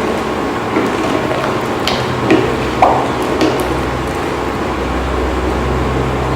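Steady rushing noise of a pot of rice boiling hard on the stove, with a few light metallic clinks in the first half. A low hum joins about halfway through.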